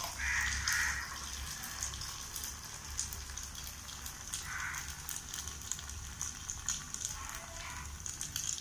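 Batter-coated sweet potato ball deep-frying in hot oil in a small clay kadai: a steady sizzle full of fine crackling pops.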